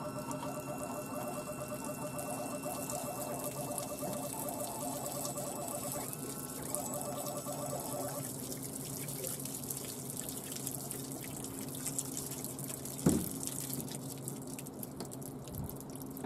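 Electric-hydraulic power trim pump of a Volvo Penta DuoProp sterndrive whining steadily as the drive is trimmed, its pitch stepping up about six seconds in and then stopping about eight seconds in. A faint steady hum remains after, with a single short knock near the end.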